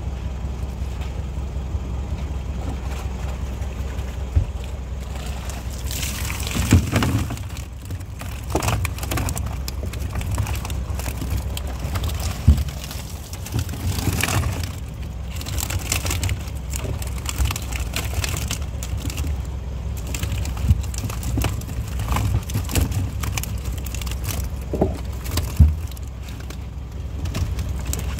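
Water splashing and sloshing in irregular bursts, starting a few seconds in, as live tilapia are netted out of plastic drums and dropped into a plastic crate. Under it runs a steady low engine hum.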